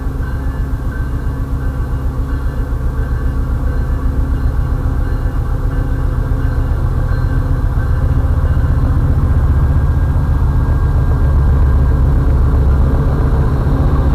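Amtrak GE P42DC diesel locomotive approaching on the track, its engine's low, pulsing rumble growing steadily louder as it nears.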